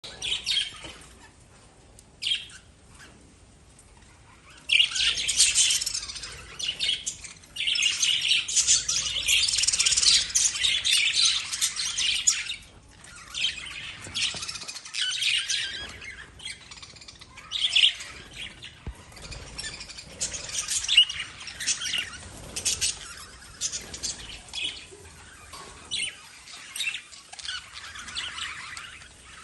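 Lovebirds chirping and chattering in shrill, high calls, with a dense burst of calls from about five to twelve seconds in, then scattered short chirps.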